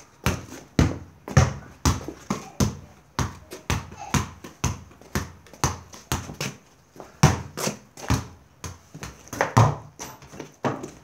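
A football kept up in the air (keepy-uppy), with sharp thudding touches about two a second in a steady, even run.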